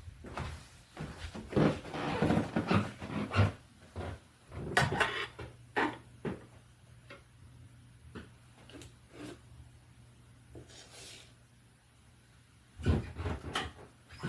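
Scattered knocks, bumps and rubbing, like a phone being handled and carried about in a house, with a quiet stretch in the middle and more knocks near the end.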